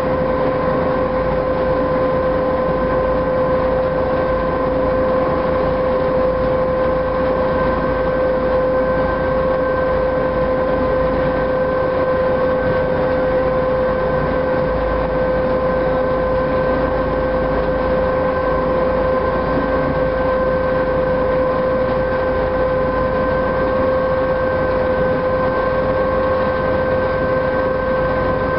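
A car ferry's engines drone steadily under way, a constant hum with a clear held pitch over a rumble of water and running noise.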